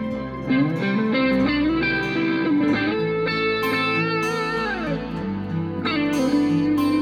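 Music led by guitar, with held notes that bend and slide down in pitch, the longest sliding down about two-thirds of the way through.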